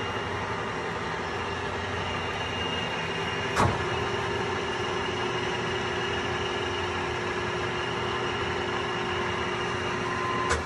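Kingston HL2500 engine lathe running with its spindle turning: a steady mechanical hum with a higher whine held at one pitch. Two sharp clicks cut through it, one about three and a half seconds in and one near the end.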